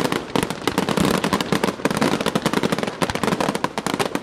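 Aerial fireworks going off close by: a loud, dense, rapid run of crackling pops and bangs from crackle and glitter stars bursting overhead.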